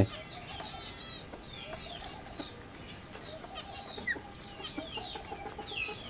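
A flock of rose-ringed parakeets feeding and chattering: many short, high chirps that fall in pitch, scattered irregularly, sometimes several in a second.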